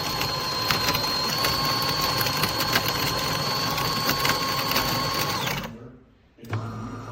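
A small motorised machine running loudly with a steady whine and rapid irregular clicking, cutting off about five and a half seconds in; a low steady hum starts just after.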